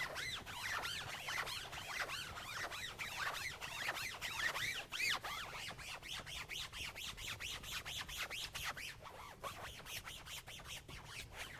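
Foam applicator pad squeaking as it is rubbed back and forth over a convertible soft top, working in a black restorer gel: a fast run of short squeaks, each rising and falling in pitch.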